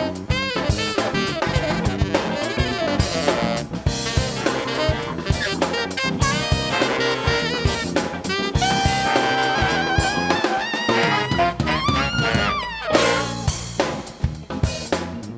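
Live funk band playing: saxophone horns over piano, bass and drum kit. A horn holds a long note about nine seconds in and slides down in pitch around twelve seconds. The drums come to the fore near the end.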